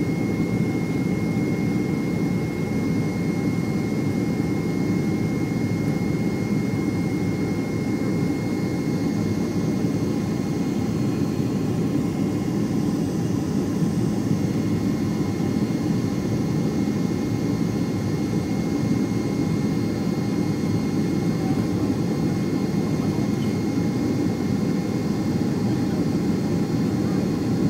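Airliner engines and rushing air heard inside the passenger cabin on final approach to landing: a steady roar with a thin whine that fades about halfway through.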